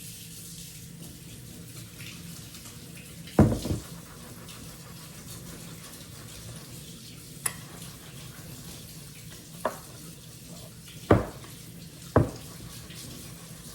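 Kitchen tap running steadily into the sink, with five sharp knocks of dishes or utensils against it, two of them loud.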